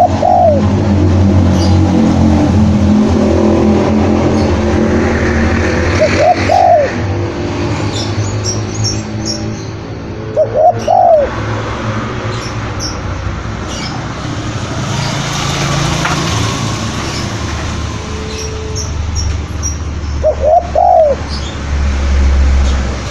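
Spotted dove cooing: four short, arched coo phrases spaced several seconds apart, over a steady low rumble and scattered high chirps from small birds.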